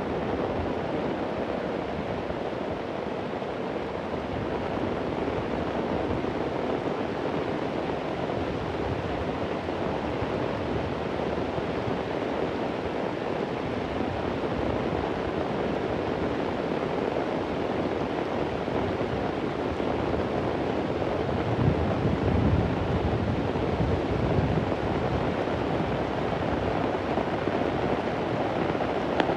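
Steady heavy rain falling, with a low rumble of thunder swelling about two-thirds of the way through.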